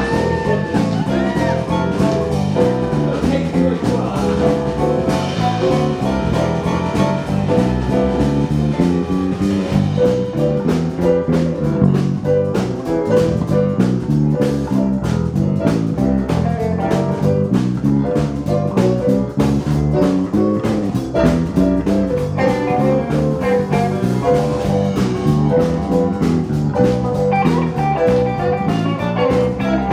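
Live blues band playing a song, with keyboard over a steady drum beat.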